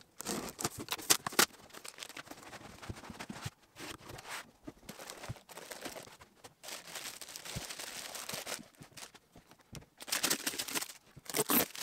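Unpacking a cardboard box: packing tape slit with a box cutter, foam inserts and the wrapped unit lifted out, and a plastic bag crinkling as it is pulled off. Irregular rustles, scrapes and small knocks, loudest near the end.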